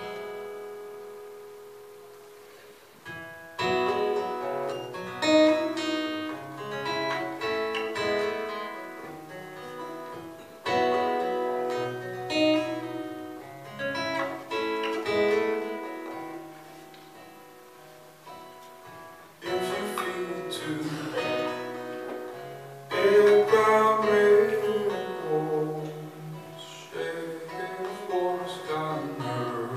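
Acoustic guitar played live as a song's accompaniment: picked notes that ring and fade, turning to louder, fuller chords from about twenty seconds in.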